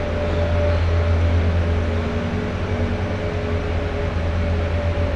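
Steady low machine hum with a couple of faint whining tones over it, the mechanical background of an empty ice arena.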